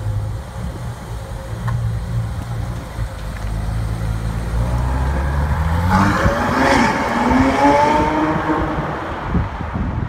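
Ferrari 812's V12 engine running at low revs as the car pulls out. About six seconds in it revs up as the car accelerates away, the pitch climbing, then the sound fades.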